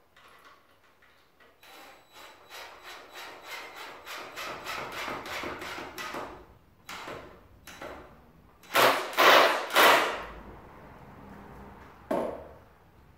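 Cordless drill driving a screw into a wooden window frame, heard as a run of rapid rhythmic pulses that grow louder. About three-quarters of the way in come three loud sharp knocks in quick succession, then one more knock near the end.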